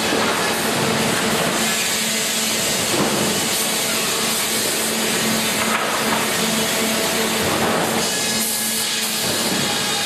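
Sawmill resaw machinery running: a loud, steady mechanical din with a constant hum over a dense hiss.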